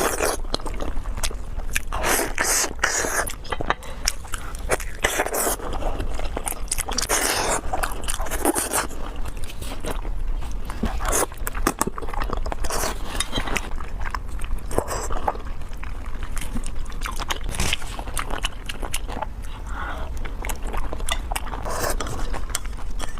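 Close-miked eating: biting and chewing, with crunching and many quick wet clicks.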